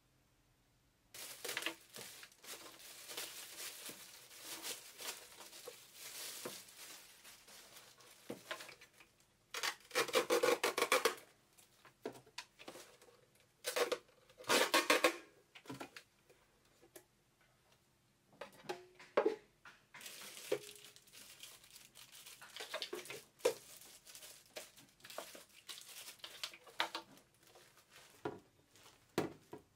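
Clear plastic packaging wrap crinkling and rustling as a new Bomann yogurt maker is unwrapped, with two louder bouts of crackling near the middle. Light knocks and clatter of the machine's plastic parts being handled come through in between.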